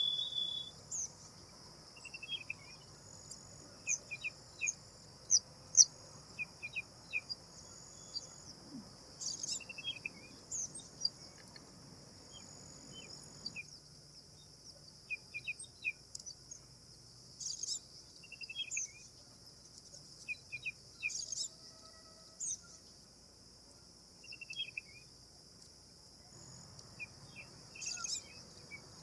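Short, repeated bird chirps and calls over a steady, high-pitched insect drone, like cicadas or crickets. The low background rumble drops away for a stretch in the middle.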